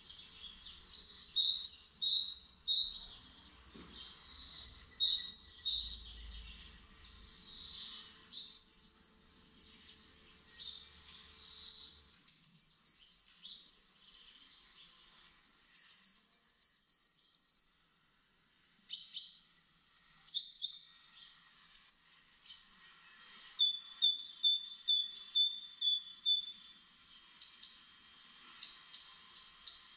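Small songbirds singing: high, short repeated phrases and trills that come in bursts with pauses between them, and quicker runs of notes in the last few seconds.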